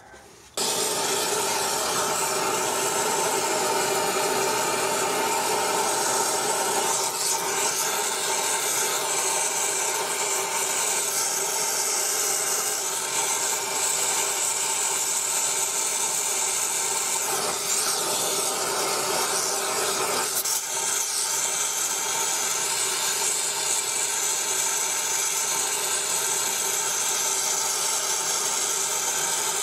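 Gas torch flame burning steadily, starting abruptly about half a second in, heating a steam wagon engine's piston that is stuck on its rod to free it.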